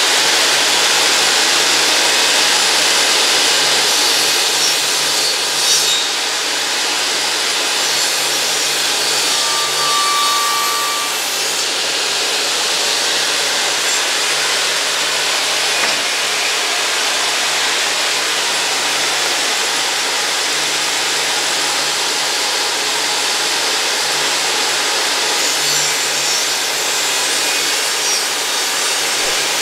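Bosch GTS 254 table saw's 1,800 W motor running steadily, its blade tilted to 45° and cutting bevels through pieces of wood.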